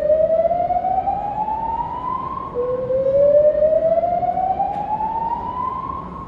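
Hotel fire alarm sounding a slow-whoop evacuation tone. Two rising whoops, each climbing steadily in pitch for about three seconds and then starting again from the bottom.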